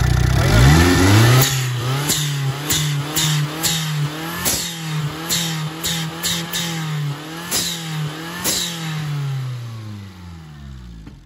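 Factory VW Gol 1.0 turbo four-cylinder engine revved up quickly and held at steady high revs, with repeated sharp ticks over the engine note, then the revs fall away near the end. This is the engine that is smoking and pushing oil out of its dipstick tube.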